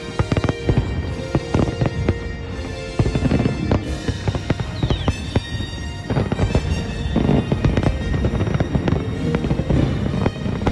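Aerial fireworks shells bursting in a dense, continuous run of bangs and crackles, with music playing underneath.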